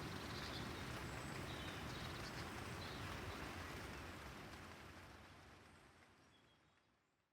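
Steady rain falling on a terrace, with a low rumble of thunder underneath, fading out over the last few seconds.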